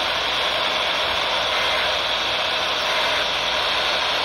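Radio receiver giving a steady, loud static hiss, with no clear station coming in.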